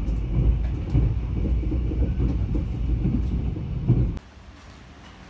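Interior of a moving train: steady low rumble of the carriage running on the rails. It cuts off suddenly about four seconds in, leaving a much quieter background.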